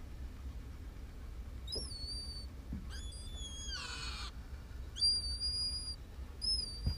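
A bird giving high whistled calls, each with a short slide into a held note, repeated four or five times at intervals of a second or two. A noisier, harsher call comes just before the middle.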